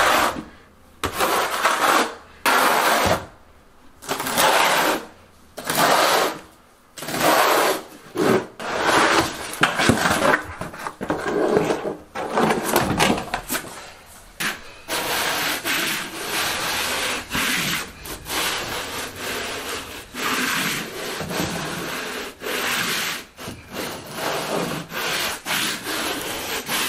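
Repeated scraping strokes of a notched trowel spreading thinset mortar, each stroke separated by a short pause. About halfway through they give way to steadier, denser rubbing as a hand float is worked over a Schluter Ditra membrane to press it into the mortar underneath.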